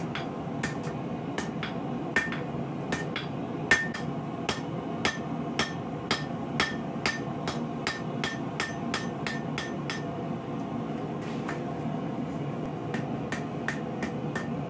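Hand hammer striking red-hot rebar on an anvil in a steady forging rhythm of about two to three blows a second, each blow with a short metallic ring. The blows stop for about a second two-thirds of the way through, then start again.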